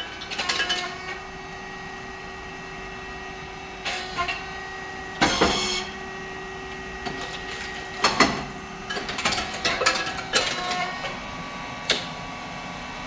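Rice cake popping machine running: a steady hum from its hydraulic pump and motor, with irregular mechanical knocks and clatter and a short hissing burst about five seconds in.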